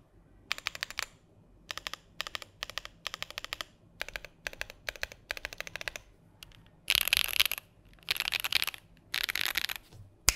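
Typing on a Keychron Q10 mechanical keyboard: short runs of rapid key clicks with brief pauses, then three longer, denser and brighter bursts of fast typing in the second half.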